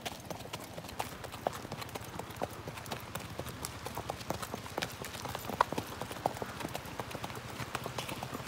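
Horses' hooves clip-clopping on a hard-packed dirt road in an uneven patter of sharp clicks.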